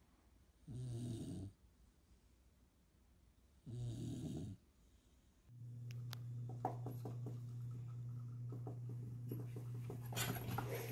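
A sleeping dog snoring, two snores about three seconds apart. Then a steady low hum with scattered light taps and rustles, growing louder near the end.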